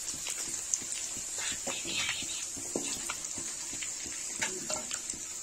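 Whole dried red chillies, cumin and carom seeds frying in hot oil in a kadhai: a steady sizzle with scattered crackles and pops.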